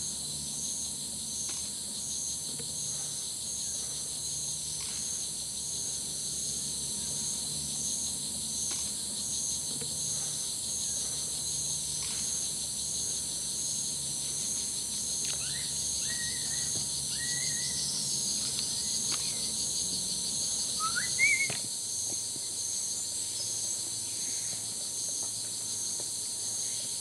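Rainforest insect chorus: a steady high-pitched buzzing with a pulsing note that repeats evenly throughout. Partway through come a few short rising bird chirps, followed by a brief sharp knock.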